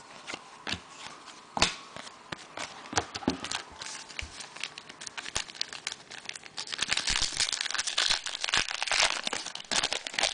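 Trading-card pack wrappers being torn open and crinkled by hand, a run of sharp crackles that grows denser and louder about two-thirds of the way through.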